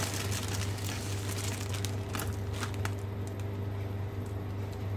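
Green cardamom pods poured from a plastic bag into a pan of whole spices, clicking and pattering as they land, with the bag crinkling. A steady low hum runs underneath.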